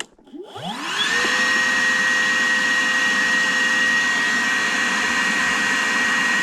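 Wet/dry shop vacuum switched on, its motor whining up to speed in about a second and then running steadily. It is sucking water out of a clogged condensate drain line.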